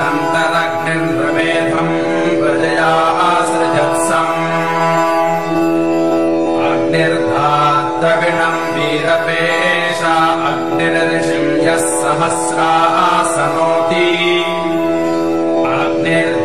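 Indian devotional music: a steady drone with a melodic line moving over it, in the manner of a chanted Sanskrit hymn.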